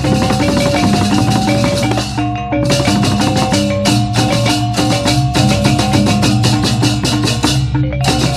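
Balinese gamelan music: ringing metallophone notes step through a melody over fast, dense clashing percussion, with a brief break about two and a half seconds in.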